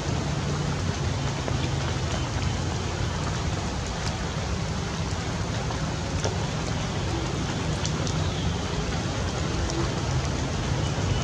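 Steady rain falling: a constant hiss with scattered ticks of drops.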